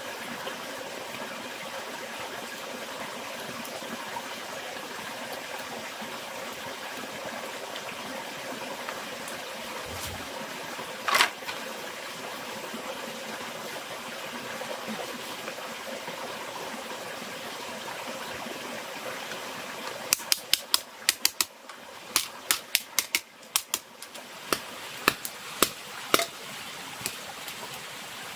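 A steady rushing background noise, broken by one sharp snap about 11 seconds in. From about 20 seconds a small wood campfire crackles, with a quick, irregular run of sharp pops and snaps.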